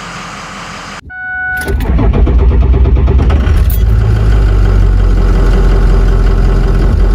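Engine idling, then after a brief two-tone beep about a second in, the 2004 Ford truck's 6.0 Powerstroke V8 turbodiesel is cranked and started. Its loud low rumble builds up and holds steady while the starter pulls the battery voltage down.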